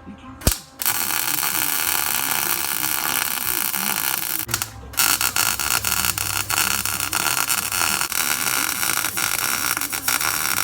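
Electric arc welding: two beads laid on a steel sprocket and axle, each a steady crackling hiss. A sharp click comes just before the first bead, which stops about four seconds in; the second starts a moment later.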